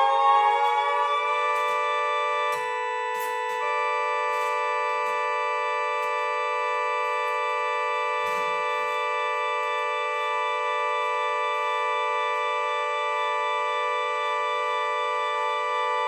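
Mini 3D-printed replica of a Federal Signal 3T22 siren sounding its steady alert tone: a chord of two notes from its 12-horn and 10-horn sections. The pitch climbs over the first second or so as the rotor spins up, then holds steady.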